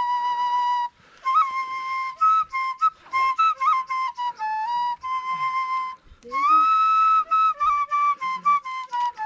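Flute music: a single flute-like line playing a quick melody of many short notes, with a few sliding rises between them.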